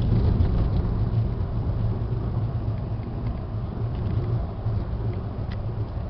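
A car driving along a paved road, heard from inside the cabin: a steady low rumble of engine and tyres.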